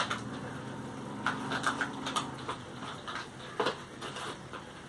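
Carrom strikers and cardboard packaging being handled: a sharp click at the start, then scattered light clicks and taps, over a low steady hum.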